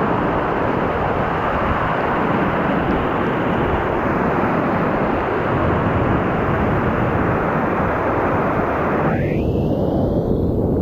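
Loud, steady roar of the Thunder River waterfall and its whitewater heard close up, with a deep rumble on the microphone; the hiss dulls briefly near the end.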